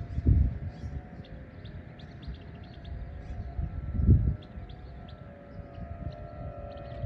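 Distant outdoor warning sirens wailing with steady tones, a higher-pitched siren joining about two-thirds of the way through. Birds chirp throughout, and two low rumbling bumps hit the microphone, one near the start and a louder one about four seconds in.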